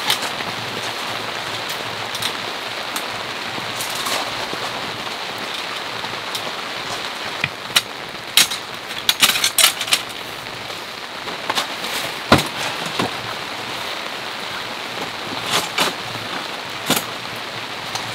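Steady rain falling, with irregular sharp taps of larger drops landing close by. The taps come in a cluster about halfway through, and the single loudest one comes about two-thirds of the way in.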